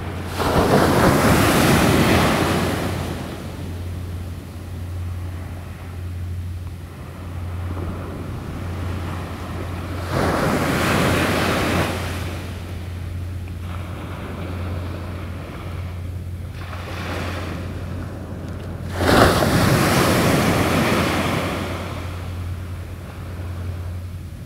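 Small waves breaking on a beach: three surges of surf, about nine seconds apart, each swelling and fading over two or three seconds, over a steady low hum.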